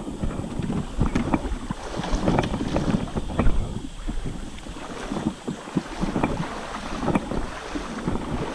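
Kayak being paddled: irregular paddle splashes and knocks, with wind rumbling on the microphone.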